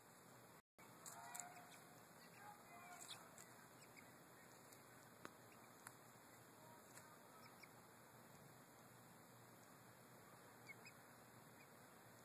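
Faint peeping of young chickens: a few short calls in the first few seconds over a steady low hiss, with a couple of faint ticks later on.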